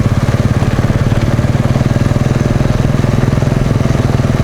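Small engine running at a steady speed, close by: a fast, even putter with a pitch that holds constant.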